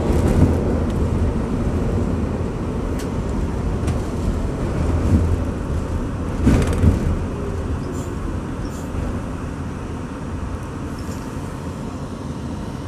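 Interior of an R62A New York City subway car in motion: a steady low rumble of wheels on track, with a few short knocks, the loudest about two thirds of the way through. It grows slightly quieter toward the end.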